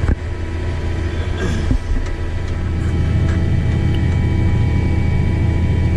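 Farm tractor engine running steadily under load while pulling a potato planter across the field, with a sharp click right at the start.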